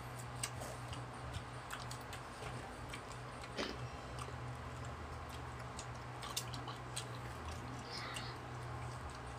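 Electric stand fan running with a steady low hum, with scattered small clicks and soft chewing as mango slices are picked up and eaten.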